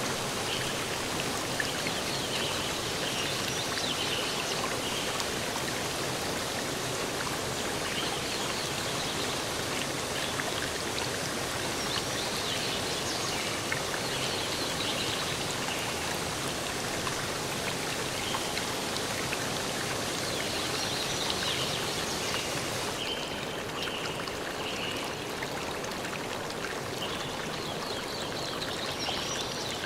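Steady rushing of water in a stream, with short high chirps recurring over it. About three quarters of the way through, the highest hiss drops away.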